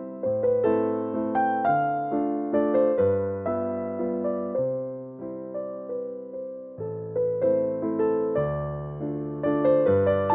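Background music: a slow keyboard melody of notes that strike and fade, roughly two a second, over held bass notes.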